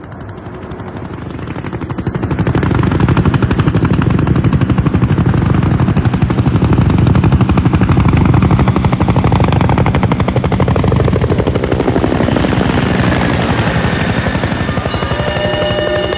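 A rapid, even chopping sound that swells up over the first few seconds and then holds steady. After about twelve seconds it thins out and held musical tones come in.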